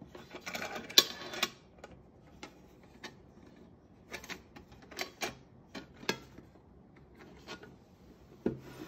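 Titaner titanium camping lunchbox handled in the hands: its folding wire handles and lid click and clink against the box in scattered light taps, with a quick run of clicks about a second in.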